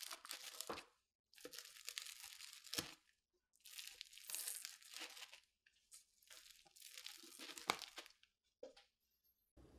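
Large rocking pizza cutter crunching through a baked pizza crust in four separate rocking cuts, each a crackly rasp lasting a second or two. There are a couple of sharp clicks as the blade presses down onto the board.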